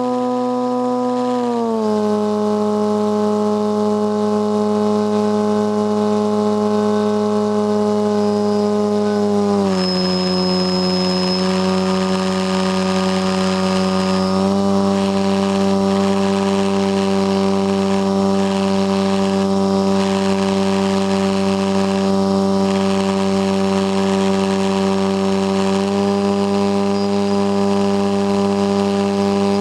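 RC model airplane's motor and propeller running close to the microphone, a steady high-pitched drone. The pitch steps down about two seconds in and again about ten seconds in, then rises about fifteen seconds in and slightly again near the end as the throttle is moved.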